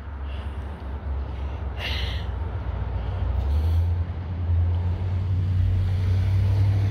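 Wind buffeting the microphone as a low rumble that grows stronger about halfway through, with a brief hiss about two seconds in.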